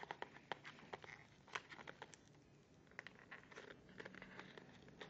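Faint crinkling and scattered small clicks of a trading-card pack wrapper being handled and pried open.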